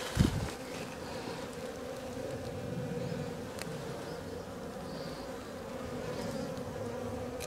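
Honeybees buzzing in flight, a steady hum, with one low thump just after the start and a faint click midway.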